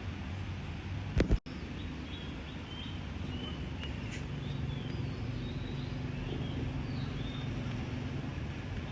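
Outdoor ambience: a steady low rumble with small birds chirping in short high calls, and two loud sharp knocks a little over a second in.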